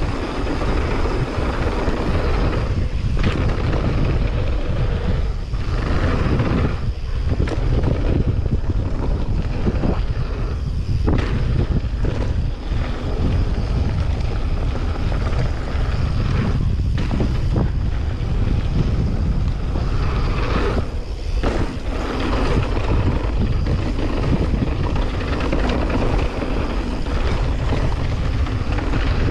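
Wind buffeting the camera microphone and knobby mountain-bike tyres rumbling over a hard-packed gravel trail on a fast descent. Occasional short knocks come through as the bike goes over bumps.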